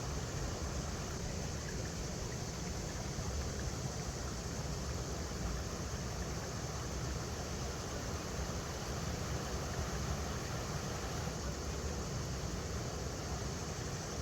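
River water running over rocks: a steady rushing with a strong low rumble.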